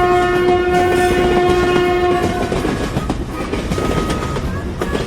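Train horn held in one long blast that stops a little over two seconds in, over the steady rumble and clatter of a train running on the rails.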